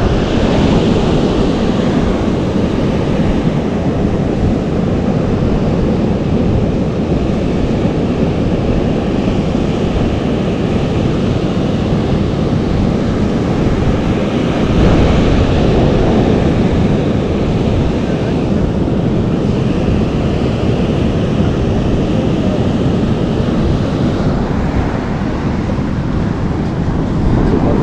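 Strong wind buffeting the microphone over the steady wash of surf on the shore.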